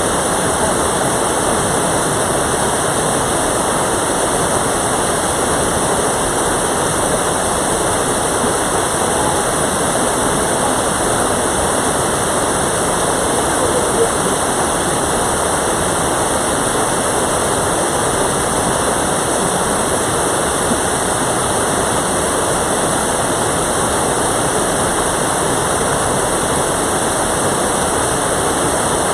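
Mountain valley stream rushing steadily, an even wash of water noise.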